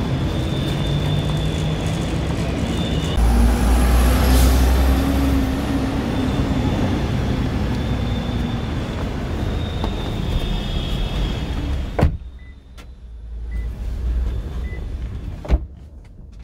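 Steady low rumble of a running vehicle, louder for a couple of seconds about three seconds in. It cuts off abruptly near the end, leaving a much quieter background broken by a sharp knock.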